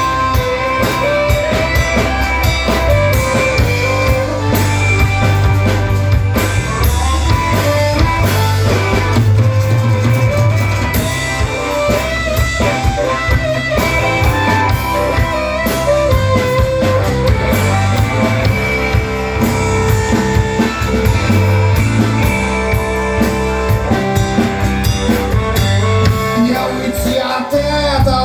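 Rock song instrumental passage: drum kit, bass and guitar playing with a melodic lead line.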